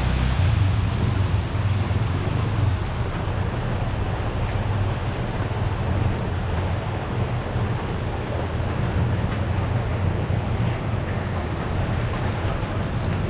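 Steady rush of a heavy storm downpour with wind, and a low rumble of wind buffeting the microphone.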